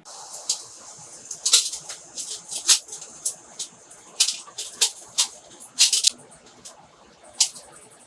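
Dry scraping and clicking of corroded Canon 400D camera body parts being pulled and pried apart by hand and with a small pick, in a quick, irregular run of short sharp scrapes.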